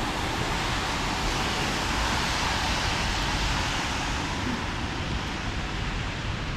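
Steady hiss of city traffic on wet pavement, swelling slightly near the middle and easing off again.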